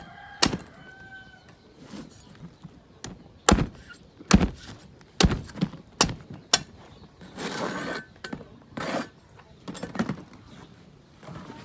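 A large knife chopping into the husk of a young green coconut: a series of sharp chops at uneven intervals.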